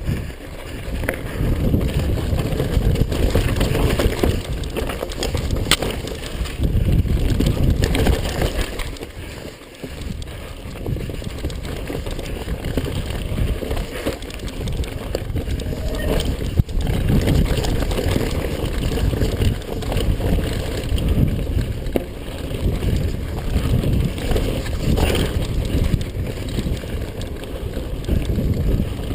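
Mountain bike riding down a dirt trail: tyres rolling over the ground, with scattered knocks and clatter from the bike over bumps.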